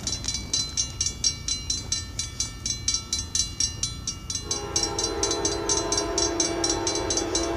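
Approaching freight locomotive's horn sounding a multi-note chord that comes in strongly about four and a half seconds in. Under it runs a fast, steady ringing of about six strokes a second, with a low rumble.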